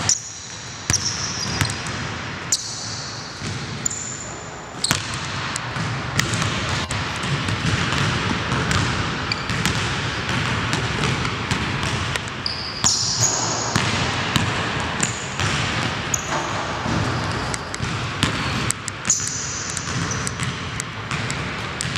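Basketball bouncing and being dribbled on a hardwood gym floor in irregular thuds, with brief high sneaker squeaks on the court.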